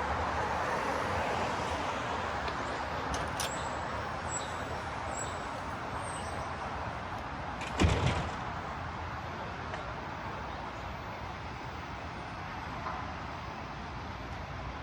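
Manhattan street ambience: steady traffic noise from passing vehicles, with a single loud thump about eight seconds in.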